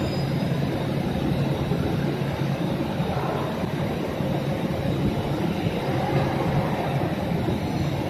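Laser engraving machine running over a steel mold plate: a steady, noisy mechanical hum with a low drone.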